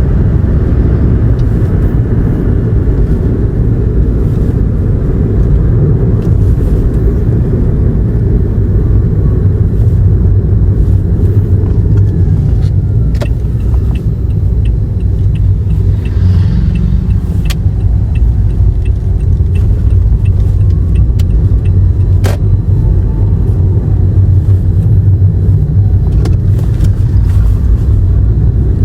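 Toyota Aqua hybrid on the move, heard from inside the cabin: a steady low rumble of road and drivetrain noise. A few sharp clicks land in the middle, along with a run of even ticks about two a second lasting several seconds.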